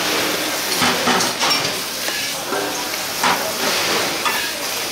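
Steady hiss and sizzle of food cooking, with a few brief knocks and clinks.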